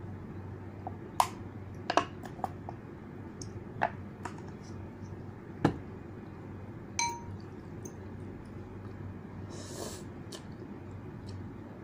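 A metal fork and spoon clinking and scraping against a ceramic bowl: a scatter of sharp clinks, one of them ringing about seven seconds in. About ten seconds in comes a short slurp of noodles.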